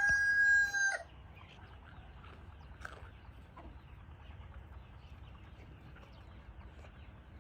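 A rooster crowing, its long flat call cutting off about a second in. Then faint chicken clucking over a quiet farmyard background.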